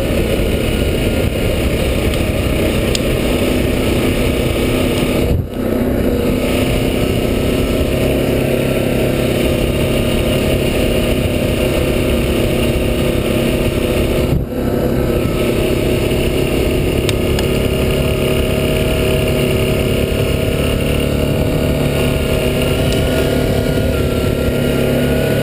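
Yamaha Grizzly 700 ATV's single-cylinder engine running steadily under way on a dirt track, with two brief drops in level about five and fourteen seconds in.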